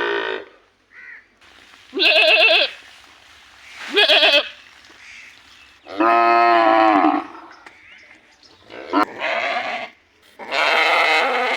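Livestock bleating: about five separate calls, short wavering bleats about two and four seconds in, a longer call lasting about a second around six seconds in, and more calls near the end.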